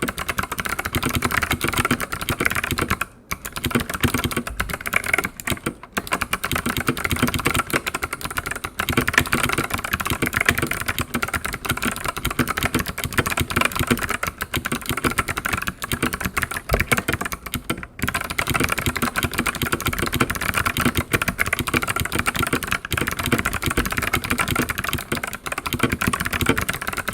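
Fast continuous typing on a mechanical keyboard with Kailh Box Jade clicky switches and PBT keycaps: a dense run of sharp keystroke clicks, with brief pauses about three, six and eighteen seconds in.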